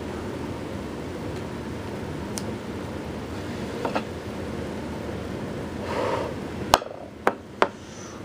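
Steady rushing noise with a few sharp, glassy taps: two faint ones about four seconds in, then three loud ones close together near the end.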